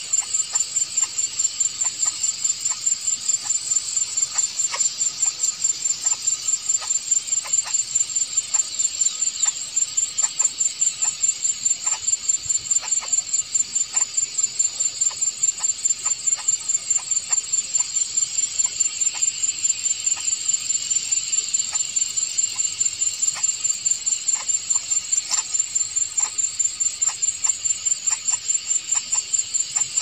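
An insect's shrill, high chirping, pulsing at a fast, even rate without a break.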